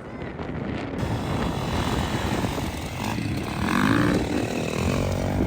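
A motor vehicle engine drones steadily, its pitch rising and falling about four seconds in as it revs or passes.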